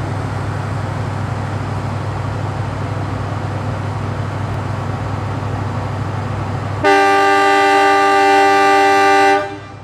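Steady low rumble of a diesel-hauled passenger train rolling past. About seven seconds in, a train horn sounds one long, loud, several-toned blast lasting about two and a half seconds: the Semboyan 35 horn signal of Indonesian railways.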